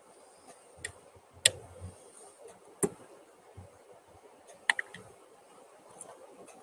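Scattered sharp clicks from computer input devices, a handful at irregular intervals. The loudest comes about a second and a half in, and a quick double click follows a little before five seconds.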